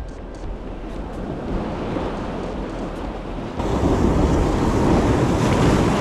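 Sea swell washing against rocks, with wind buffeting the microphone. About halfway through, the rush of water grows suddenly louder as a wave surges up over the rock ledge.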